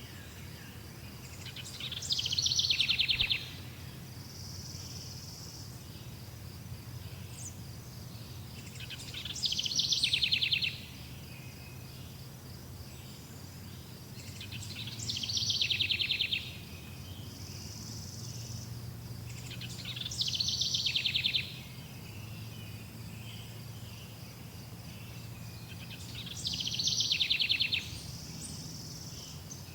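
A songbird repeats the same short song five times, about every six seconds; each phrase builds up over about a second and ends in a fast, falling trill. A steady high insect buzz runs underneath.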